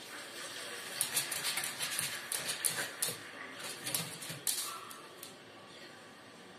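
A French bulldog puppy's claws scrabbling and tapping on the top of a TV cabinet as it paws at it: a quick, irregular run of clicks and scratches that stops a little after five seconds in.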